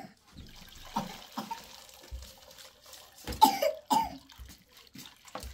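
Liquid trickling as it is poured from a small metal pot into a plastic strainer of ground wild pistachio mash. Two loud, short coughs come a little past the middle.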